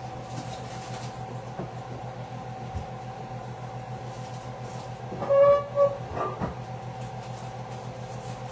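Steady low machine hum of a kitchen appliance, with two faint steady whining tones above it. A short, loud pitched sound breaks in about five seconds in.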